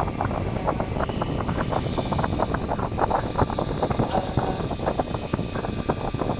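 ATP JET GTCM-1512 pattern-cutting plotter running: a steady low mechanical rumble with rapid, irregular clicking and ticking as the cutting head works.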